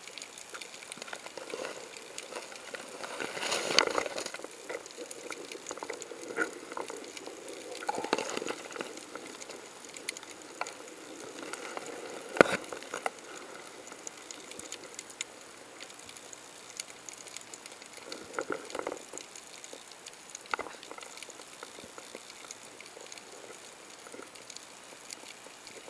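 Underwater ambience picked up by a submerged camera: a faint, steady crackle peppered with small clicks. A few louder swells of rustle come and go, and there is one sharp click about twelve seconds in.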